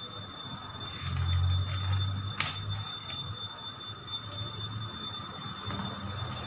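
Room noise: a faint steady high whine, a low rumble that swells twice, and one sharp click about two and a half seconds in.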